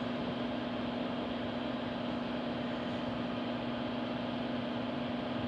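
Steady, unchanging machine hum with one constant low tone and an even hiss, from equipment running in the examination room.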